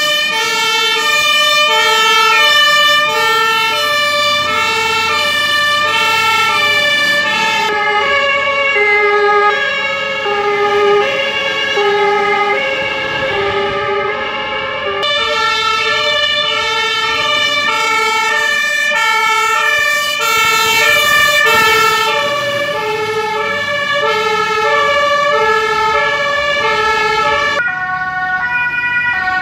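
German two-tone fire brigade sirens (Martinshorn) from a convoy of fire engines passing one after another, each siren swapping steadily between a low and a high note. The pitch pair changes a few times as one vehicle's siren gives way to the next, and at times two sirens overlap.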